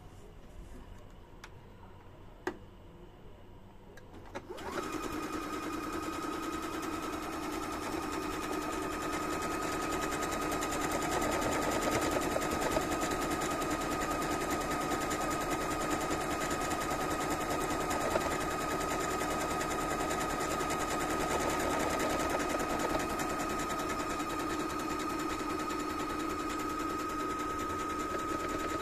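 Singer Heavy Duty HD6705C computerized sewing machine stitching a buttonhole. A few seconds in, the motor starts and runs at an even speed with rapid needle strokes and a steady whine, stopping just before the end.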